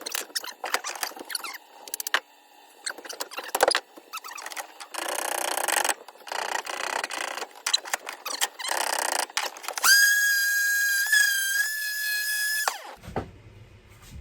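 Wood being taken off an axe handle with a hand tool, heard as uneven scraping strokes. Near the end a steady high-pitched squeal lasts about three seconds, then cuts off.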